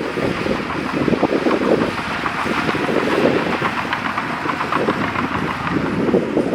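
Bulldozer running with a dense, steady rattling clatter, with wind noise on the microphone.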